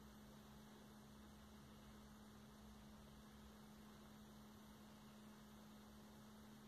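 Near silence: a faint steady hum with light hiss.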